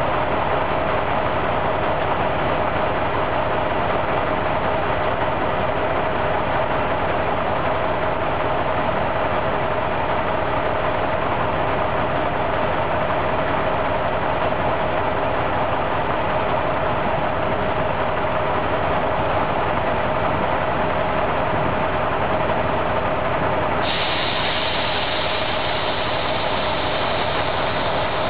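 Diesel engine of an old SNCB Brossel railcar idling steadily while the vehicle stands still, heard from down at the bogie. About two thirds of the way in, a steady higher hiss joins it.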